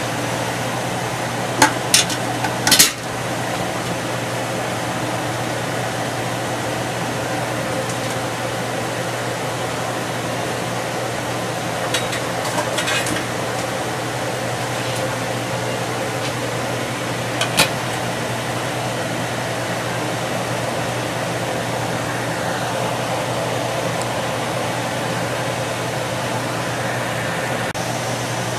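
Stainless steel steamer basket and stockpot clanking, three sharp metal knocks in the first few seconds and a few lighter ones later, as the basket of shrimp is seated over boiling water. Under it runs a steady hiss of the boiling water and steam with a low hum.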